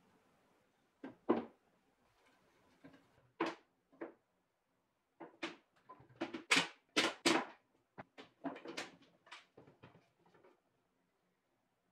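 Plywood pieces knocking together and being set down on a wooden workbench: scattered short wooden clacks, with a quick run of several knocks around the middle.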